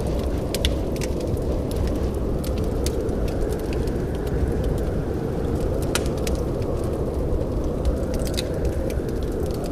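Wood fire crackling in a fireplace: irregular sharp pops and snaps, several a second, over a steady low rush of sound.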